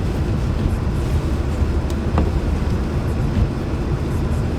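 Steady low rumble of a car driving on a snow-covered highway, heard from inside the cabin: tyre and road noise through snow and slush, with the engine underneath.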